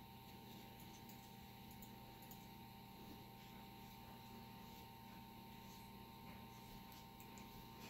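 Near silence: room tone with a faint steady hum and a few faint clicks.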